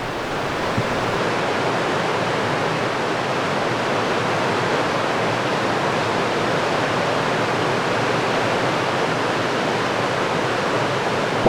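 Creek swollen with high water, rushing steadily.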